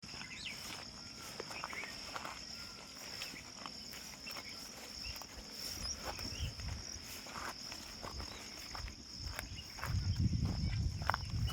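Steady high-pitched trilling of an insect chorus, with scattered short clicks and chirps over it. A low rumble comes in briefly about halfway through and grows louder near the end.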